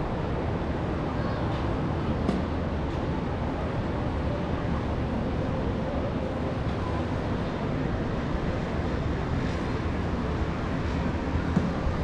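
Steady outdoor ambience from high up: wind noise on the microphone over a low, distant rumble of city traffic.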